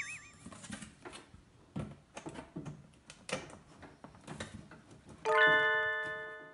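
Light plastic knocks and clicks as a toy food truck's reversible sign is lifted off and set back in place. About five seconds in, a bright chime rings out and fades over about a second.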